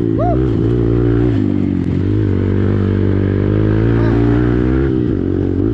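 Hero XPulse motorcycle's single-cylinder engine running through an aftermarket Akrapovic exhaust, holding a steady engine speed with slight wavering.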